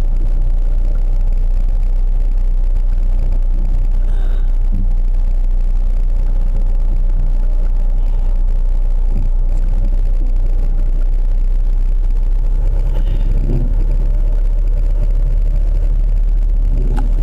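Steady low engine and road rumble from inside a moving car.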